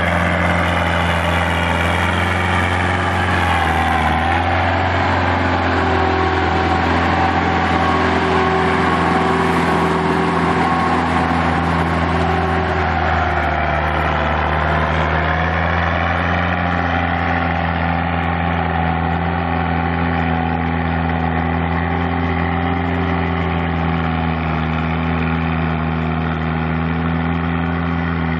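Belarus-421 tractor's diesel engine running steadily as the tractor tills a flooded rice paddy with a rear rotary tiller; its pitch sags briefly twice and recovers.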